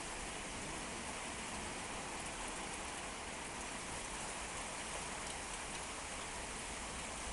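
Rain falling steadily on outdoor surfaces during a storm, with a few brief sharper drop ticks standing out.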